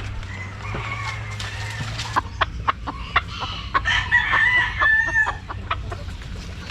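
Chickens clucking, with a rooster crowing in one held call about four seconds in. Before the crow comes a quick run of sharp clicks or taps, and a steady low hum runs underneath.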